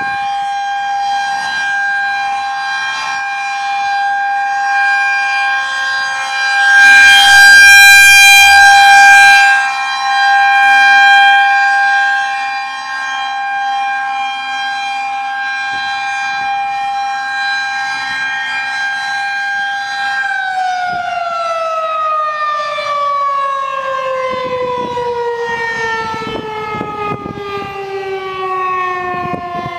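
Federal Signal 2001-SRNB outdoor warning siren sounding a steady single tone, swelling louder twice about a third of the way in. About two-thirds of the way through it is shut off, and its pitch falls steadily as the rotor winds down at the end of the test.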